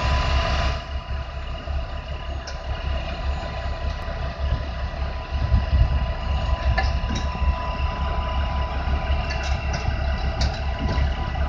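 Heavy tow truck's diesel engine running steadily as it powers the winch during an overturned truck recovery, a low rumble with a thin steady tone above it.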